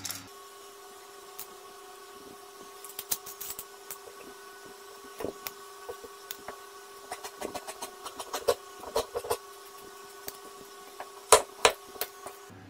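Scattered light clicks and taps of fabric and tools being handled on a table, over a steady faint hum. Near the end come two sharper clicks of dressmaking shears cutting a fabric strip.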